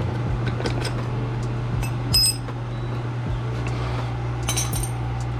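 Small metal clicks and ringing metal clinks, as of tools or parts knocking together: one clink about two seconds in and a few more near the end, over a steady low hum.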